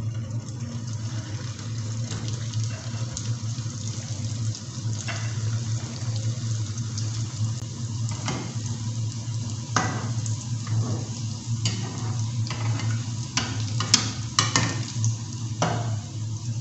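Chicken kachoris deep-frying in hot oil in a kadhai: a steady sizzle with scattered crackling pops, more of them in the second half, over a steady low hum.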